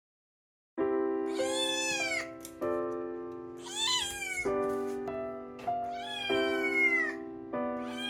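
Background music starting about a second in, with a cat meowing four times over it, each meow a drawn-out call that rises and then falls in pitch.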